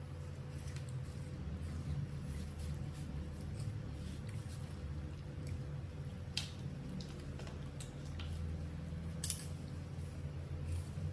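Knife cutting watermelon against a plastic tray: scattered small clicks and taps of the blade through the wet flesh, with two sharper clicks in the second half, over a steady low hum.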